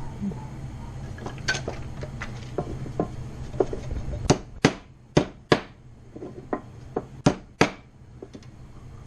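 A run of sharp knocks and taps on hard objects, loudest as about half a dozen quick strikes between about four and eight seconds in, over a steady low hum.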